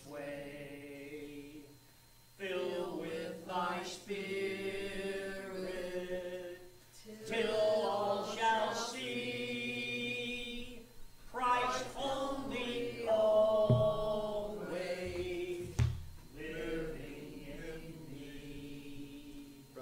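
Church congregation singing a hymn, in sung phrases with short pauses between the lines.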